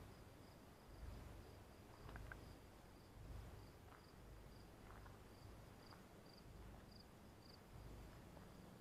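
Faint cricket chirping: a steady run of short, high chirps, a little more widely spaced near the end, over a low rumble.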